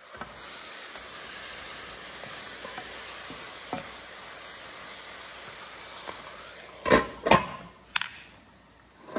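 Sliced wine cap mushrooms frying with onions and cashews, a steady sizzle with a few faint ticks. Two loud clatters come about seven seconds in and a smaller one a second later, and then the sizzle drops away.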